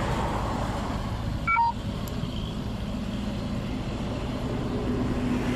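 Vehicle engine running steadily with road and wind noise, and a brief three-note falling electronic beep about a second and a half in.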